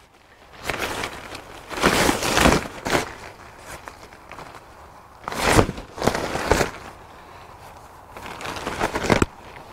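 Berghaus Cheviot 2 tent flysheet rustling and crinkling as it is lifted, shaken out and unfolded, in several short spells.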